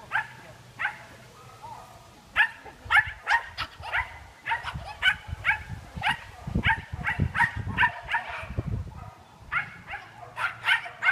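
A dog barking excitedly over and over, in quick runs of sharp barks with short pauses between.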